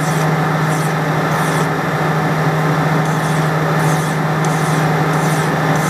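Metal lathe running with a steady hum while a hand file is drawn across the spinning steel workpiece, a rasping scrape with each repeated stroke as the turned surface is smoothed.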